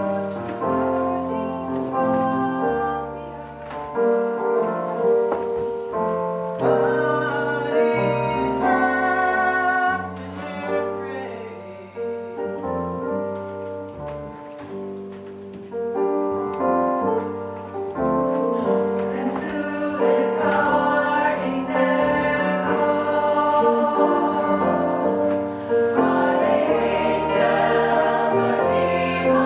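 Choir singing a musical-theatre song with piano accompaniment, in sustained chords that swell fuller and louder about two-thirds of the way through.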